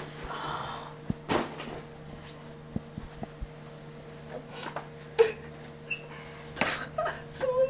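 Scuffling of bodies on a carpeted floor: scattered knocks and thuds, the loudest about five seconds in, over a steady low hum. Near the end there is a short groan.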